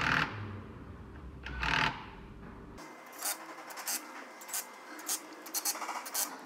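Hand tools scraping and clinking against metal on a car's underside: two longer scrapes in the first two seconds, then a run of short, irregular scrapes and clicks.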